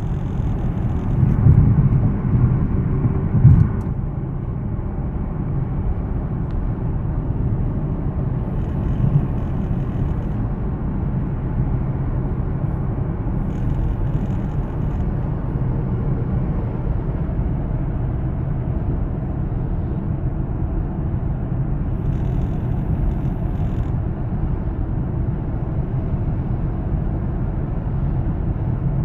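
Steady low rumble of a car in motion, with a couple of louder thumps in the first few seconds. A faint high-pitched chirping comes and goes three or four times over it: the chirping/clicking noise being asked about.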